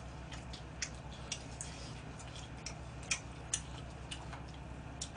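Eating sounds at a table: irregular small clicks and taps of chopsticks against plastic food containers, with two louder clicks a little past halfway, over a steady low hum.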